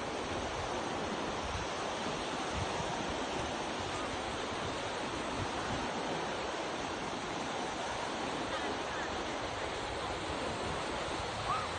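Sea surf washing steadily onto the shore, a continuous rushing of waves. A brief faint rising squeak sounds near the end.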